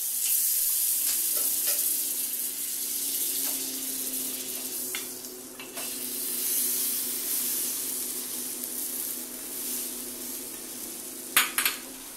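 Butter sizzling on a hot flat tawa under a rolled chapati wrap; the sizzle starts suddenly and then runs steadily. A few metal spatula clicks on the pan come about halfway through, with a quick cluster near the end.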